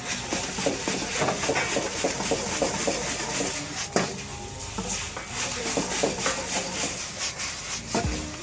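Noodles stir-frying in a black iron wok over a flame: a steady sizzle with the metal ladle scraping and clanking against the wok as the noodles are tossed, one louder clank about four seconds in.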